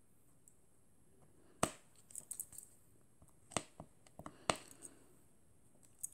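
Irregular sharp clicks of square resin diamond-painting drills being set with a drill pen onto the sticky canvas: a loud click about one and a half seconds in, a quick run of small clicks just after, then more spaced single clicks.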